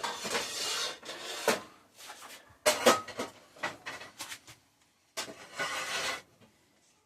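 Kitchenware being handled and slid on a hard surface: noisy scraping and rubbing at the start and again about five seconds in, with a few sharp knocks between.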